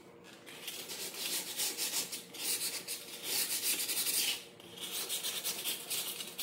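Sandpaper rubbed by hand on stained wooden stair spindles in quick back-and-forth strokes, scuffing the old stain so primer will grip. The strokes pause briefly twice.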